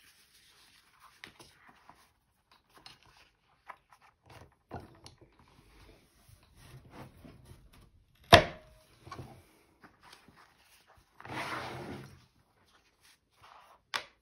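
A hand press cutting a hole through vinyl with a hole-cutter die. Light handling clicks, then one loud sharp clack about eight seconds in as the die is pressed through, a brief rustling scrape about three seconds later, and another sharp click near the end.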